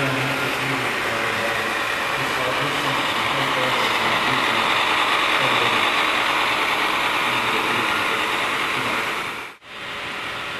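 HO-scale model diesel locomotives running past on layout track: a steady whirring of their motors and wheels on the rails, with a low hum that comes and goes. The sound drops out briefly near the end.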